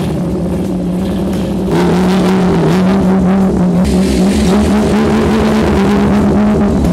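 Old pickup truck's engine revving hard while the truck spins and slides on snow, getting louder about two seconds in, with the engine note rising and falling.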